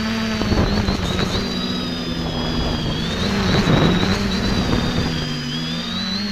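Quadcopter's electric motors and propellers whining, heard through its onboard camera, the pitch sliding up and down as the throttle changes in the turns. Rushes of wind noise on the microphone about half a second in and again near the middle.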